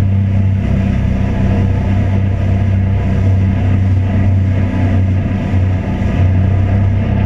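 An engine running steadily, a loud low hum with a rushing noise over it.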